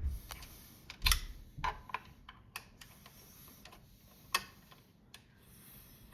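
Irregular small clicks and knocks of 3D-printer parts and screws being handled during assembly, the loudest with a dull thump about a second in.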